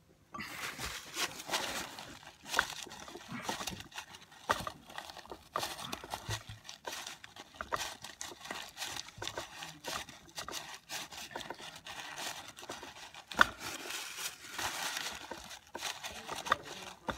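A paper shop towel crinkling and rustling, with light metal clicks, as the small dump-valve holder is gripped and twisted loose by hand inside the housing of an Eaton Model 7 hydrostatic transmission. One sharper click comes late on.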